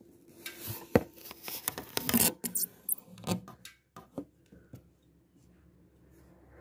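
Handling noise from the throttle body and accelerator-cable linkage of a Hero Splendor BS6 being worked by hand, with the engine off: scattered clicks and rubbing scrapes that die away to near silence near the end.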